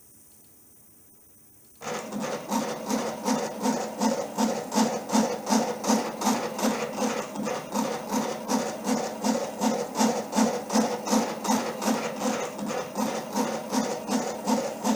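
Stepper motors of a small DIY three-axis CNC machine starting up about two seconds in and driving the axes in a steady rhythm of about three pulsing strokes a second, each with a buzzing hum.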